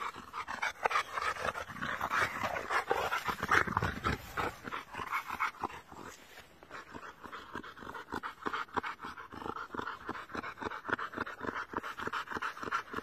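A white boxer and an American Bulldog panting hard from rough play, fast and rhythmic. The breathing is rougher and louder in the first half, then settles into a quick, even rhythm.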